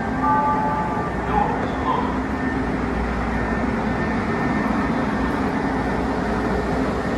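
Steady hum and noise of a CTA Budd 2600-series rapid-transit car standing at the platform. Near the start a few held electronic tones sound together and stop about a second in.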